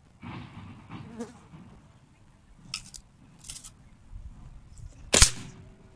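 AF500 PCP air rifle firing a single shot about five seconds in: one sudden, sharp report.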